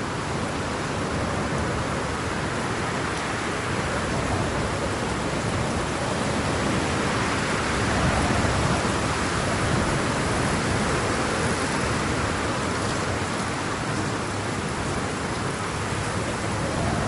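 Sound effect of steady heavy rain with wind, a dense even hiss that swells slightly about halfway through.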